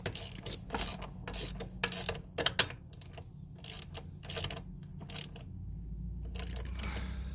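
Reversible ratcheting wrench clicking through repeated short strokes as it tightens a mounting nut on a bolt, with a pause in the ratcheting near the end.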